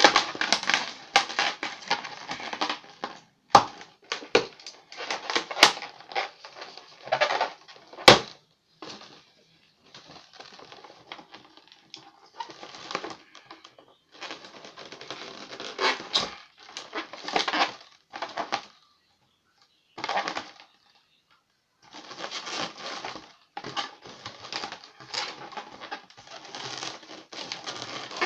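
Blue latex modelling balloons squeaking and rubbing against each other in rapid crackly bursts as they are twisted and bent, with short pauses between runs. There are a few sharp clicks in the first eight seconds.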